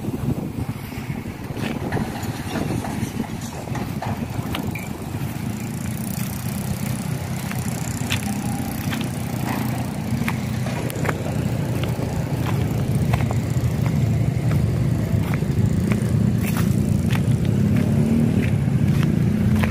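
A low, steady engine rumble that grows gradually louder, with scattered light clicks over it.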